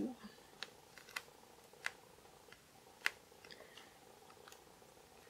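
A few faint, scattered light clicks and taps, about one a second, from objects being handled on a work surface.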